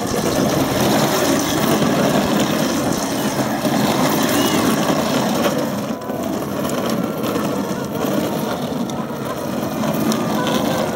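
Hard plastic wheels of a push-along toddler ride-on car rolling and grinding on a rough concrete driveway as the car is pushed and swung around. The rumble is steady, with a short dip about six seconds in.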